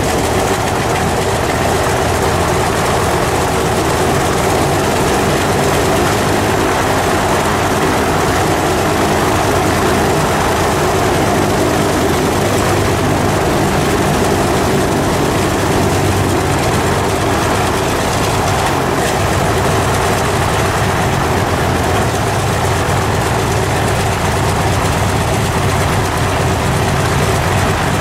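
Antonov An-2's nine-cylinder radial engine and propeller running steadily at idle, soon after the engine's first start in many years.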